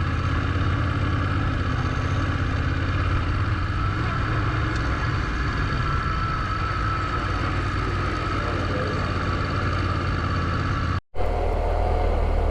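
Adventure motorcycle's parallel-twin engine running steadily at low speed in first gear through soft gravel. The sound drops out for a moment about eleven seconds in, then the engine drone resumes.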